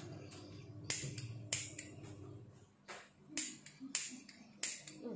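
A run of sharp, dry clicks, irregularly spaced at one to three a second, over a faint low hum.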